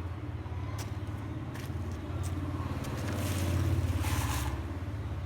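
A motor runs with a steady low hum that swells about three seconds in, with a hiss over the loudest stretch, then eases off.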